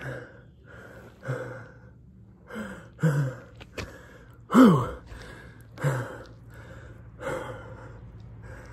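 A man breathing hard and gasping, out of breath, with a heavy breath about every second and a half. About halfway through comes a louder voiced groan that falls in pitch.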